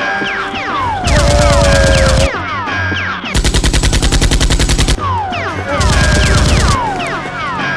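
Automatic gunfire sound effects in rapid bursts of shots, alternating with stretches of many overlapping falling whistling tones over a heavy low rumble.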